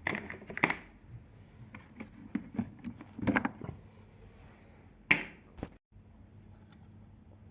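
Scattered clicks, knocks and scrapes of hands handling the casing of a Revox A77 reel-to-reel tape recorder while it is being opened from the back, with louder knocks near the start, about three seconds in and about five seconds in.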